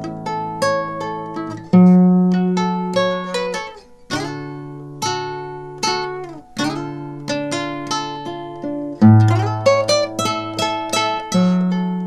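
Background music: plucked acoustic guitar playing a picked melody over a bass line, with a new note a few times a second.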